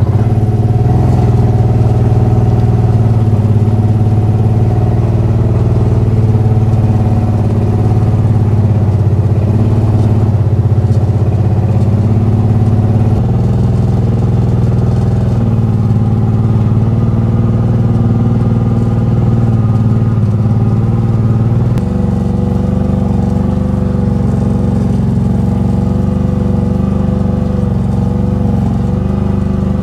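A vehicle engine running steadily while towing the mini backhoe, its note shifting slightly partway through and dropping a little about two-thirds of the way in.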